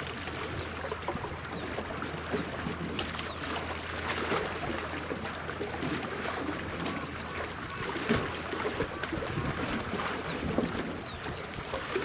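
A passing warship's engines give a low steady hum under rough wind and water noise. A small bird twice gives a high whistled call, a flat held note followed by short arching notes, near the start and again about ten seconds in.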